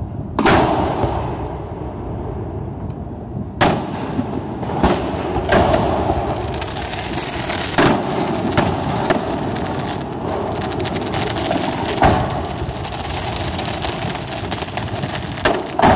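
Aerial firework shells bursting overhead: about eight sharp bangs a second to a few seconds apart, over a dense crackle from the glittering stars that fills the gaps between bangs from about four seconds in.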